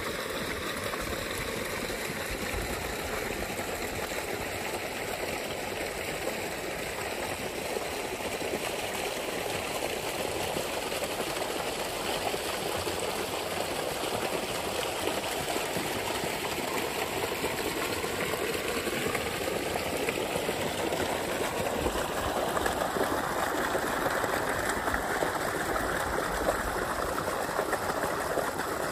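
Water gushing from a large pipe outlet and splashing into a pond, a steady rush that grows louder and fuller about twenty seconds in.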